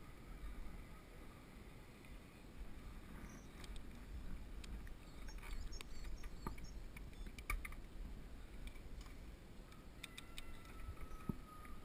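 Mountain bike riding on a paved road, heard through the helmet camera's wind-buffeted microphone: a low wind rumble with scattered clicks and rattles from the bike. There are a few faint high chirps midway, and a thin, slightly falling tone near the end.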